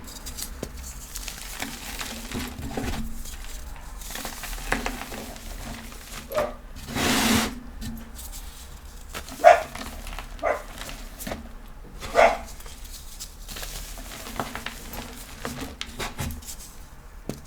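A dog barking in the background, about four short single barks spread several seconds apart, over soft crunching and crumbling of pressed powdery chalk blocks, with one longer powdery crunch near the middle.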